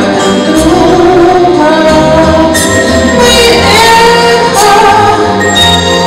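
A woman singing a song through a microphone over an instrumental accompaniment with a steady bass line and light percussion.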